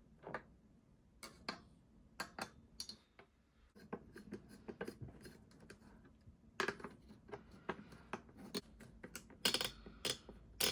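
Irregular clicks and taps of plastic and metal parts as an AMD stock CPU cooler is handled and fitted onto the motherboard, with a few louder clicks in the second half.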